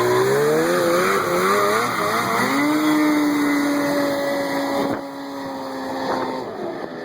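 1980 Ski-Doo Blizzard 9500 Plus snowmobile's two-stroke engine running, its pitch wavering at first. About two and a half seconds in the pitch rises and holds steady, then the sound eases off and the pitch falls near the end.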